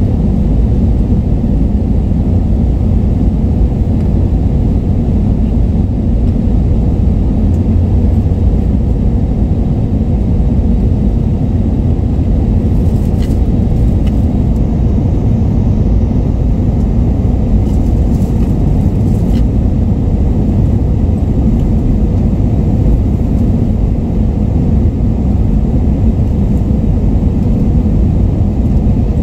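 Steady rumble of airliner cabin noise aboard an Airbus A321neo, engine and airflow noise with a faint steady hum. A few faint clicks come around the middle.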